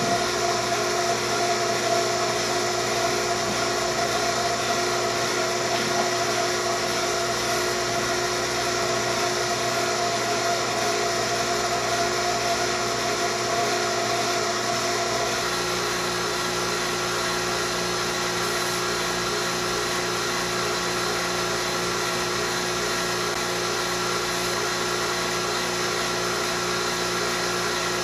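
7 CFM HVAC vacuum pump running steadily, pulling a deep vacuum on a sealed jar of water, a steady mechanical hum with a higher whine. About halfway through, the higher tone drops out and a lower hum takes over.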